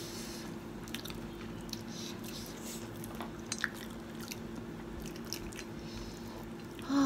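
Chewing and biting into fried chicken and potato wedges, with soft wet mouth sounds and small scattered clicks over a steady low hum.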